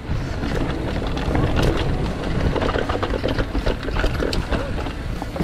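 Mountain bike riding down a dirt trail: wind buffeting the microphone and tyres rolling over dirt, with frequent short rattles and clicks from the bike and trail.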